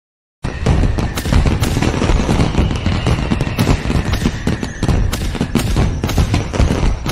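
Fireworks going off: a dense run of bangs and crackles that starts about half a second in, with a faint falling whistle under them.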